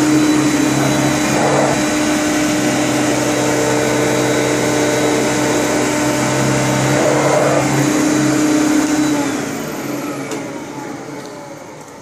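Hoover Conquest commercial upright vacuum cleaner running on thin carpet, a steady motor hum with a thin high whine. About nine seconds in it is switched off and the motor winds down, falling in pitch and level.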